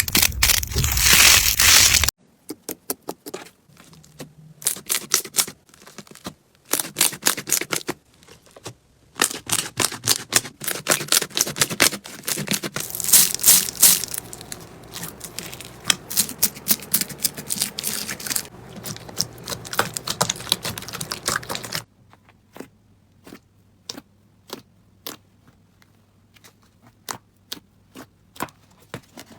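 Slime being squeezed and pressed by hand, giving rapid crackling and popping clicks. The texture changes abruptly about 2 s in and again about 22 s in, and after the second change the clicks come sparse and quieter.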